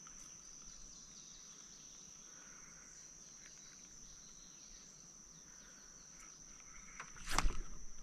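Quiet creekside ambience under a steady, high-pitched insect drone, with a brief louder knock or splash about seven seconds in.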